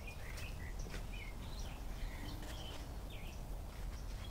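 Birds chirping in short, scattered calls over a steady low outdoor rumble.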